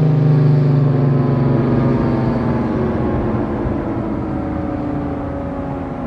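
Federal Signal Thunderbolt 1000AT rotating outdoor warning siren winding down at the end of its Full Alert signal, its tone sliding slowly lower and fading. A low hum underneath drops out about two seconds in.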